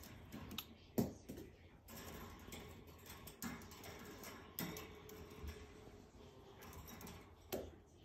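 Budgie's claws and beak clicking and tapping on a wire cage top: scattered light ticks with a few louder knocks.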